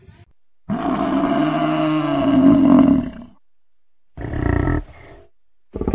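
Water buffalo bellowing: one long low call, then two shorter ones.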